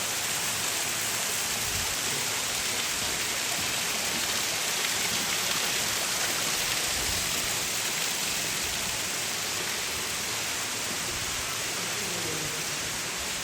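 Steady, even rush of falling water from an indoor waterfall feature, unbroken throughout.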